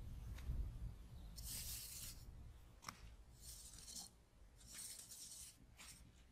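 Machete blade scraping and digging into dry sandy soil: four short rasping scrapes, roughly one a second.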